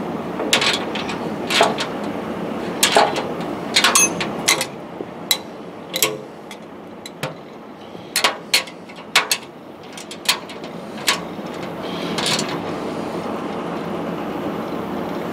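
Metal clinks and taps of a wrench on a nut and steel bracket as a sunshade mounting bolt is snugged up against a tractor's sheet-steel fender, a dozen or so sharp, irregular clicks with pauses between, over a steady background noise.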